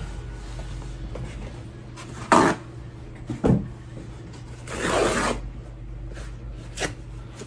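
Paper towel handled and pulled off a roll, with a few short rustles and one longer tearing rip about five seconds in as a sheet is torn off.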